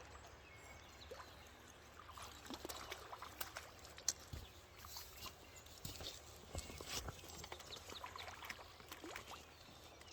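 Faint splashing and trickling river water with scattered irregular clicks, as a hooked sucker thrashes at the surface while being played on a rod.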